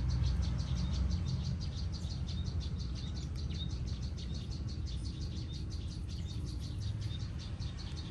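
Insects chirping outdoors in a fast, steady pulse of high clicks, about five a second, over a low rumble.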